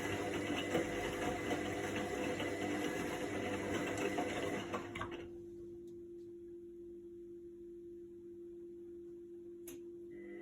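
Indesit washing machine running a quick wash: the drum motor turns with a steady mechanical whir, then stops about five seconds in, leaving a faint low electrical hum and one sharp click near the end.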